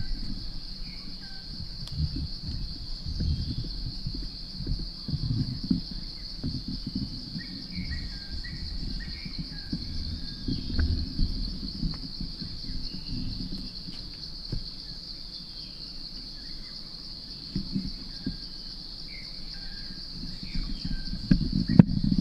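Steady high-pitched drone of forest insects, with short bird chirps scattered through it. Irregular low rustles and thumps run underneath and grow louder near the end.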